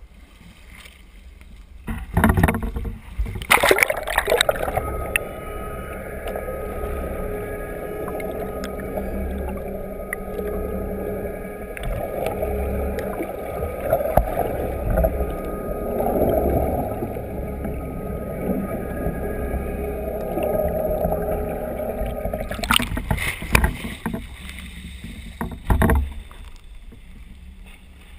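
Splashing as a pole-mounted GoPro in its underwater housing plunges into the sea a few seconds in. Then comes a long muffled underwater rush with a steady hum, likely from the boat's engine and propeller, with more splashing near the end as the camera comes back out.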